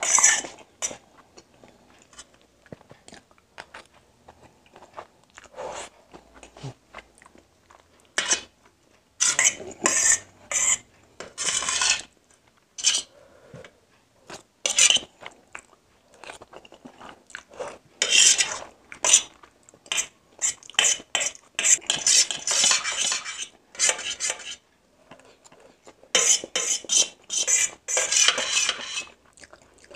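Metal spoon scraping and clinking against a steel plate, gathering up the last egg noodles, in repeated bursts of clatter. Quieter stretches of chewing noodles come between the bursts.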